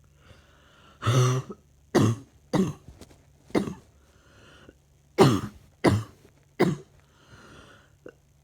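A person coughing repeatedly with a chesty cough: about seven short, loud coughs in two bouts, with quieter breaths drawn between them.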